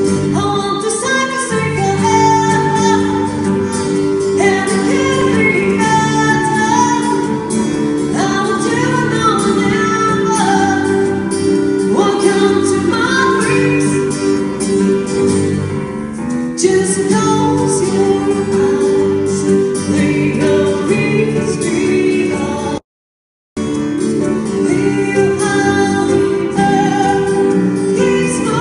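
A woman singing a slow pop song live, accompanied by acoustic guitar and keyboard. The audio cuts out completely for about half a second roughly three-quarters of the way through.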